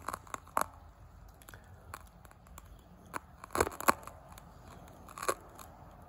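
Sharp clicks and taps of a smartphone with a clip-on telephoto lens being handled and repositioned: a few near the start, a loud cluster a little after three and a half seconds, and another just past five seconds.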